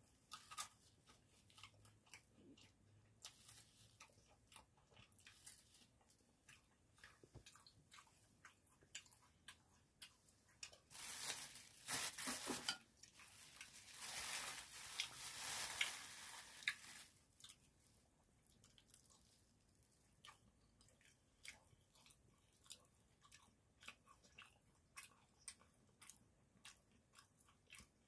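Close-up eating sounds: soft chewing of spicy sundae skewers with many small wet mouth clicks. A louder rustle of plastic runs from about the middle of the stretch for several seconds.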